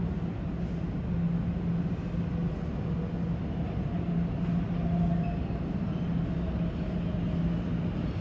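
Steady rumble of a subway train heard in the station but out of sight, pulsing gently, with a faint high squeal around the middle.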